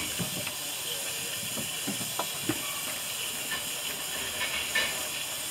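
Narrow-gauge steam locomotive standing with steam hissing steadily from low at the front of the engine. A few short knocks stand out over the hiss, the loudest near the end.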